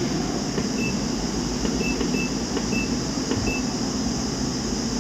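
Steady hum of a fan or air conditioner, with five short, high electronic beeps from the bench test equipment in the first three and a half seconds.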